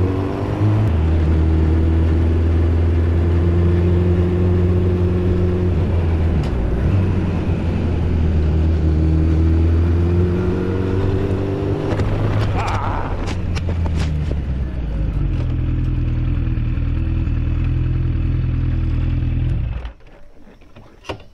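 Yamaha FJ1200's air-cooled inline-four engine running under way, its pitch rising and falling as the revs change, with a few sharp knocks about two-thirds of the way through. About 20 seconds in the engine sound cuts off suddenly as the camera falls off the bike into the roadside brush, leaving only faint noise.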